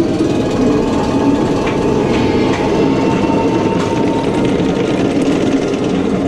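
Nemesis, a steel inverted roller coaster, with its train rolling along the track overhead: a steady, loud rumble of wheels on rail.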